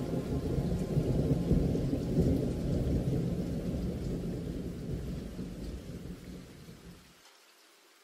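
Rain with a long roll of thunder that swells about one to two seconds in and then slowly dies away. The deep rumble cuts off abruptly near the end, leaving faint rain.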